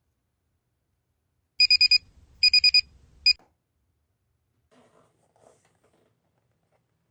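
Electronic alarm-clock beeping: two runs of four quick high-pitched beeps and then one single beep, after which it stops. Faint rustling and small clicks follow.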